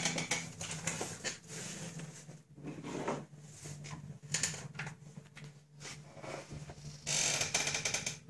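Irregular rustling and handling noises over a steady low hum, with a louder burst of rustling about seven seconds in.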